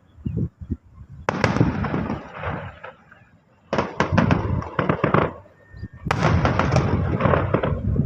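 Fireworks going off: a few small pops, then three runs of rapid bangs and crackling. The runs start about a second in, near the middle and about three-quarters of the way through.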